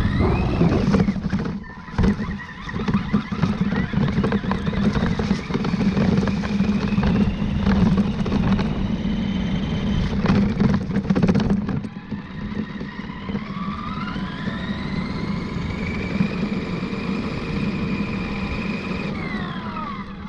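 RC truck driving over rough ground: a steady rumble of tyres and chassis with the motor's whine rising and falling with speed, and a few sharp knocks in the first half. Past the midpoint the rumble eases and the whine climbs, holds high, then drops off near the end.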